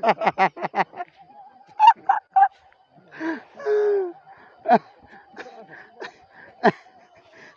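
A person laughing in a quick run of 'ha-ha' pulses at the start, followed by scattered voices and laughter, with two sharp knocks in the second half.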